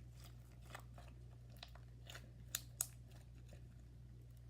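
Slime being squeezed and stretched by hand, giving faint sticky clicks and pops, with two sharper pops near the middle. A low steady hum sits underneath.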